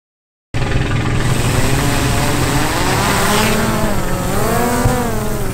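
Quadcopter drone's propellers whining as it hovers close by, the pitch rising and falling as the motors adjust, over a steady low rumble. The sound cuts in abruptly about half a second in.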